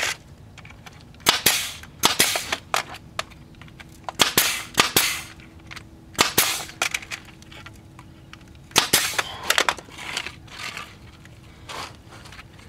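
Pneumatic brad nailer firing 1¼-inch brad nails into the wooden corners of a picture frame: a series of sharp shots, some in quick pairs or groups, each followed by a brief hiss.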